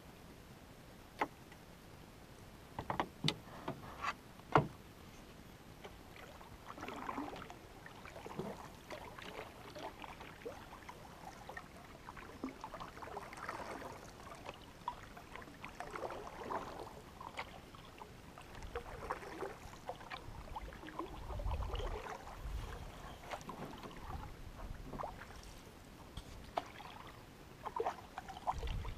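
Canoe being paddled on calm water: the paddle swishes and drips with each stroke, about every two to three seconds. There are a few sharp knocks in the first five seconds.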